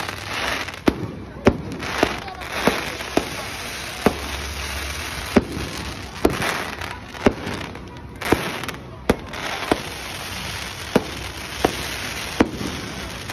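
Aerial fireworks going off: an irregular string of sharp bangs, about one a second, with crackling and fizzing from the bursting stars in between.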